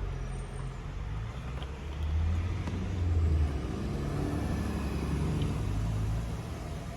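Mercedes Vito diesel van engine running steadily at low revs. It grows louder about two seconds in and settles back near the end.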